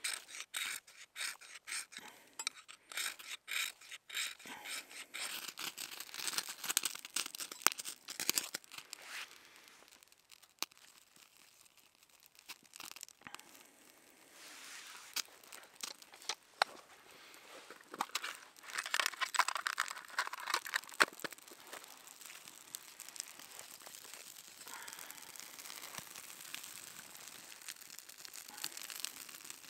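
Dry leaves and twigs rustling, crunching and snapping in irregular bursts, with a quick run of rustles in the first few seconds and sharp snaps throughout.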